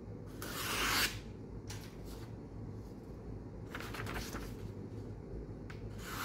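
Freshly sharpened knife edge slicing through a sheet of paper in a few swishing cuts. The first cut is the longest and loudest, and another begins right at the end.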